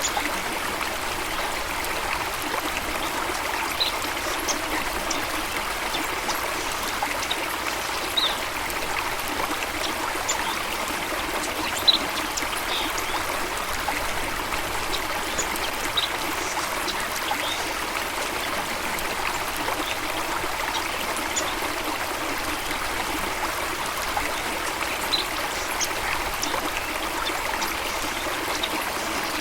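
Running stream water, a steady, even rush and trickle, with brief high ticks here and there.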